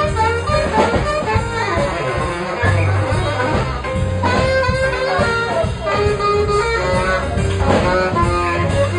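Small jazz band playing a blues live, saxophones to the fore over electric bass and keyboard, with short percussive strokes through it.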